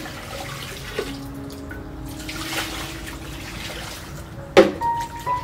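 Water poured from a plastic jug splashing into a stainless steel basin as raw pork is rinsed by hand. A sudden sharp sound about four and a half seconds in is the loudest moment.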